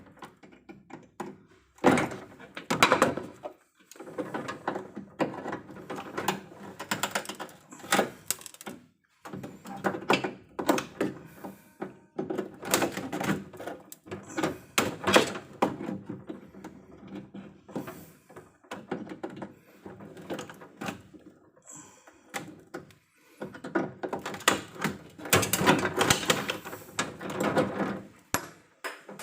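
Irregular knocks, clicks and clatter of hands-on work with tools and hardware, going on in uneven bursts with short pauses.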